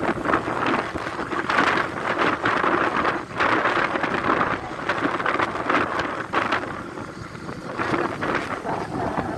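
Wind buffeting the microphone in uneven gusts, a loud rushing noise that swells and drops every second or so.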